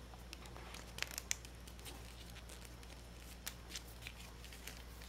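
Faint clicks, taps and rustles of a plastic action figure being handled by fingers, its hand and parts being worked, with a couple of sharper clicks about a second in.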